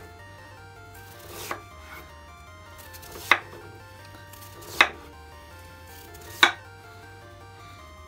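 Kitchen knife cutting down through a peeled daikon radish onto a wooden cutting board, four cuts about a second and a half apart. Each cut is a short slicing build-up ending in a sharp knock on the board, and the first is the softest.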